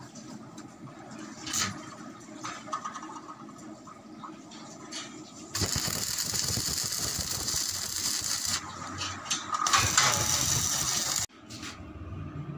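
Electric arc welding on a steel stair tread: a loud crackling sizzle that starts about five and a half seconds in, dips briefly, and cuts off abruptly near the end. Before it, quieter knocks and handling of the steel.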